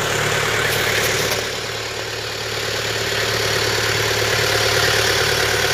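Mercedes-Benz 220 D's four-cylinder diesel engine idling steadily.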